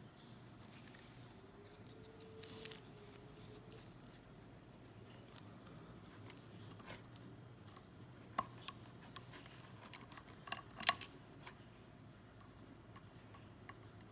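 Small clicks and taps of hand tools and small plastic and metal parts being handled while a coupler is fitted to an HO scale model locomotive with a tiny screw. The clicks are scattered, with a sharp cluster about eleven seconds in that is the loudest.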